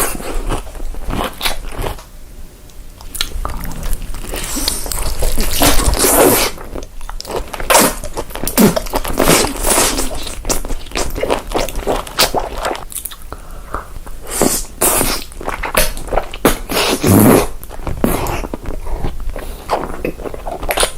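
Close-up eating sounds: biting and crunchy chewing, with irregular crackles and clicks.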